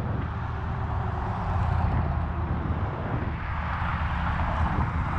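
Steady low rumble and hiss of wind and rolling noise from a bicycle being ridden, swelling a little toward the end.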